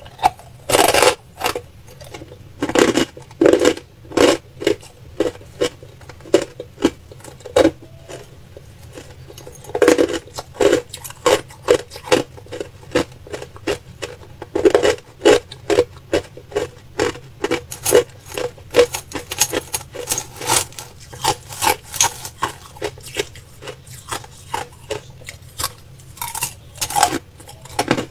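Crushed ice being chewed: a long run of sharp, irregular crunches, several a second.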